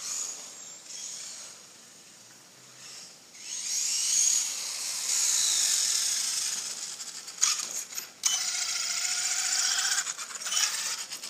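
Brushless electric motor of a Traxxas 1/16 Slash VXL RC truck whining as it drives up and passes close, with a hiss of wheel spray off the wet asphalt. It starts faint about three seconds in and grows loud as the truck nears, the whine sliding in pitch as the throttle changes.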